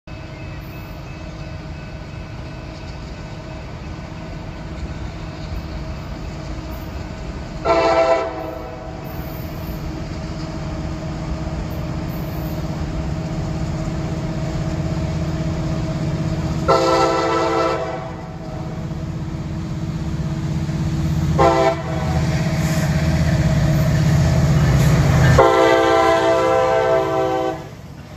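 Diesel freight locomotive horn sounded four times as the train approaches, the third blast shortest and the last the longest, in the long-long-short-long pattern used for a grade crossing. Beneath it the rumble of the locomotives grows louder as they draw near.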